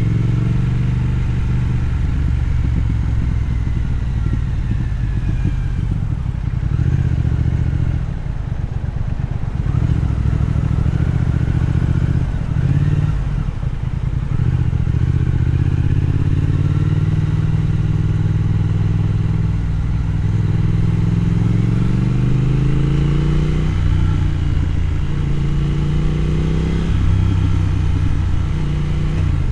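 Triumph Thruxton's parallel-twin engine running under way on the road, rising in pitch twice in the second half as the bike accelerates, with brief dips between.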